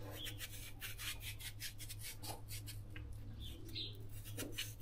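A knife scraping and cutting through the flesh of a hard-skinned winter squash, a quick run of short rasping strokes.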